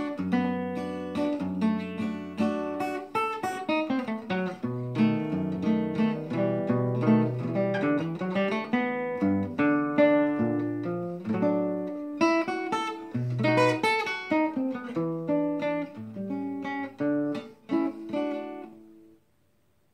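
Solo acoustic guitar playing a ragtime-era jazz piece, a run of single-note melody lines mixed with chords. The last chord stops suddenly just before the end.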